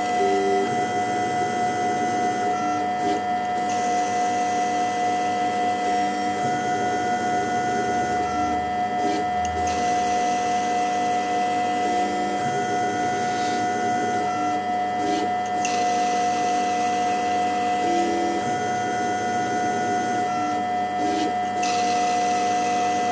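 CNC-converted Optimum 180x300 mini lathe running a threading cycle: a steady hum and whine from the turning spindle, with the stepper motors buzzing in tones that step up and down as the axes move. The pattern repeats about every six seconds, one threading pass after another.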